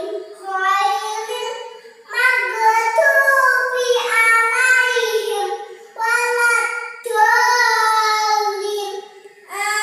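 A four-year-old girl chanting her prayer recitation aloud in Arabic, in a high, sing-song child's voice, phrase by phrase with short pauses between.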